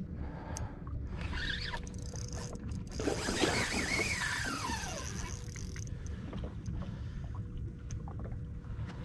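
Steady low rumble of a boat on the water, with scattered mechanical clicking and rattling. About three seconds in, a squeal falls in pitch over a couple of seconds.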